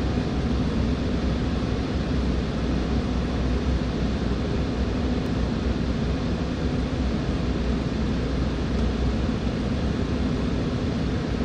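Steady cabin noise inside an Embraer 195 on approach: the low hum of its GE CF34-10E turbofan engines under the rush of air past the fuselage.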